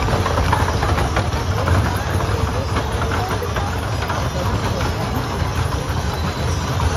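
Horse-drawn wooden wagon with spoked wheels rolling over cobblestones: a steady low rumble with scattered clicks, over the murmur of a crowd.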